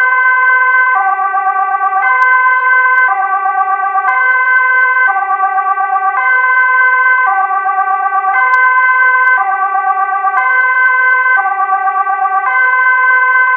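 Indonesian railroad crossing warning siren: an electronic signal that switches back and forth between a lower and a higher tone about once a second, over one steady high note held throughout.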